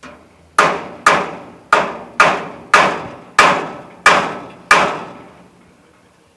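Eight hammer blows on the metal of a tractor trailer being repaired, about one every half second to two-thirds of a second, each ringing out briefly.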